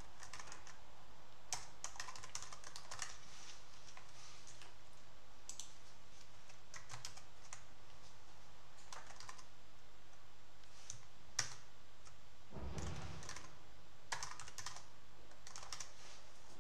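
Computer keyboard typing in short, irregular bursts of keystrokes with pauses between them.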